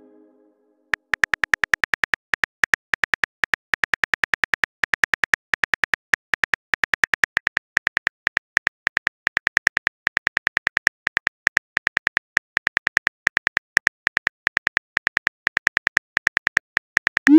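Phone keyboard typing clicks: a rapid run of short ticks, about eight a second with brief pauses, starting about a second in as a long text message is typed out.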